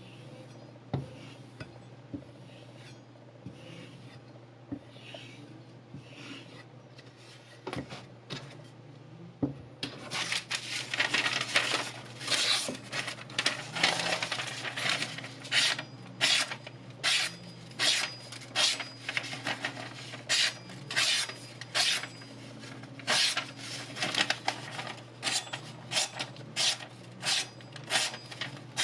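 Kitchen knife blade stroked along sandpaper on a block in repeated rasping strokes: soft, light strokes at first, then from about ten seconds in, louder scraping strokes at about two a second.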